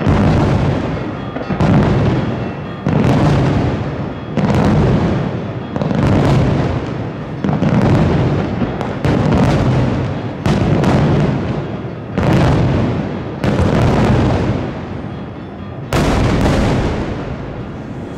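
Aerial firework shells bursting in a steady series of deep booms, about one every second or so, each dying away over a second before the next. A fresh, sharper boom comes about sixteen seconds in.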